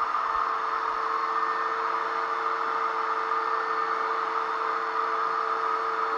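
Power drywall sander running steadily: a constant whir with one steady tone, unchanging throughout.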